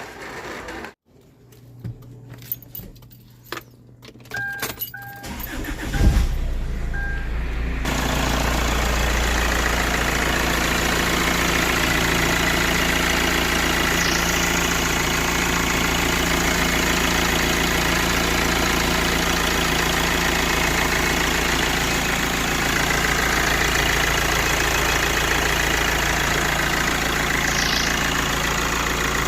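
Kia Carens engine being started after a thermostat replacement: a few clicks and short beeps, then the starter cranks about six seconds in and the engine catches and settles into a steady idle.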